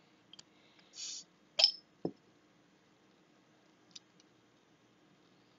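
Crown cap being prised off a glass beer bottle with an opener: a short hiss of escaping gas about a second in, then a sharp metallic click with a brief ring as the cap comes free, followed by a dull knock.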